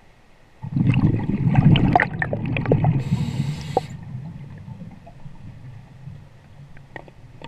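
Scuba diver's breathing underwater: a loud burst of exhaled bubbles rumbling and gurgling for about three seconds, starting suddenly under a second in, then a short hiss from the regulator on the in-breath before it fades.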